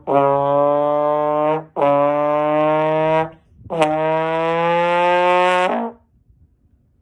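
Trombone playing a race-car imitation: three long, low notes in a row with short breaks between, each drifting slightly upward in pitch.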